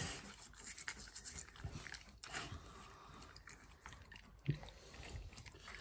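Faint wet scrubbing of a toothbrush on an Alaskan malamute's teeth, with small clicks as the dog licks and chews at the brush. A brief low thump comes about four and a half seconds in.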